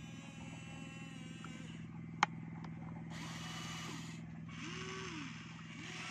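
HUINA RC excavator's electric gear motors running with a steady whirring hum. The pitch rises and falls briefly as the boom and bucket are worked. There is one sharp click about two seconds in.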